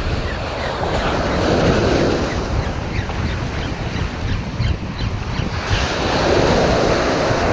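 Surf washing onto the beach, swelling twice, with wind buffeting the microphone.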